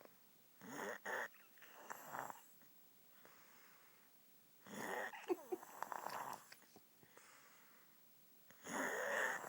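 A sleeping woman snoring: a rough, rasping breath every few seconds, one of them longer in the middle.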